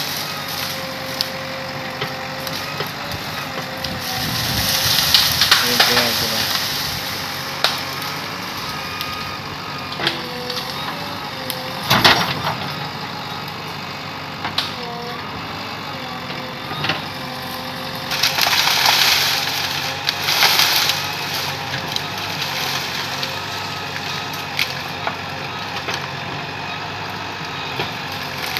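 JCB backhoe loader's diesel engine running steadily under load as its backhoe arm pushes into a clump of bamboo. The stalks crack and splinter in bursts, with a sharp crack about twelve seconds in and a further spell of splintering around twenty seconds.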